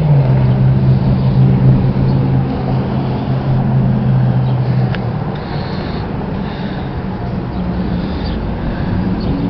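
A motor vehicle's engine running as a steady low hum over a rumble of outdoor noise. Its pitch drops slightly at the start and the hum fades out about halfway through.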